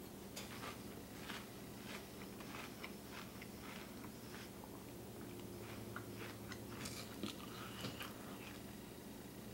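Mouth chewing and crunching a spoonful of Cinnamon Toast Crunch cereal in milk: many short, irregular crackles, with a metal spoon now and then clinking in a plastic bowl.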